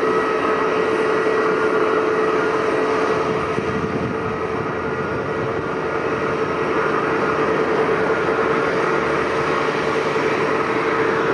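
Aircraft engines running steadily: a constant whine over a broad rushing noise, dipping slightly in level midway.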